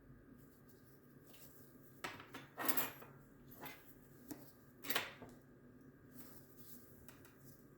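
A few short scrapes and light clicks of a small USB flash drive being handled and turned over on a work surface, the loudest about three and five seconds in.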